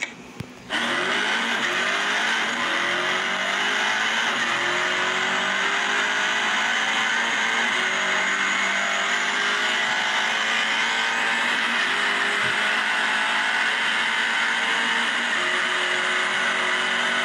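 Simulated supercar engine sound from a speedometer app, starting abruptly about a second in and accelerating hard, its pitch rising and dropping back at several gear changes.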